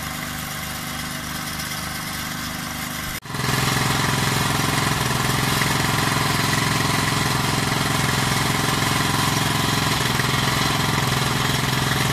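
Small motor-driven water pump running steadily, pumping water out of a flooded wreck, with an even low pulse under its running; it becomes clearly louder after a brief dip about three seconds in.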